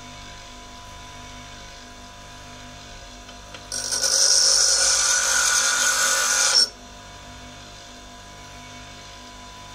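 Bench grinder motor running with a steady hum. About four seconds in, a steel parting tool is pressed against the grinding wheel, giving a loud grinding noise for about three seconds that cuts off suddenly as the tool is lifted away.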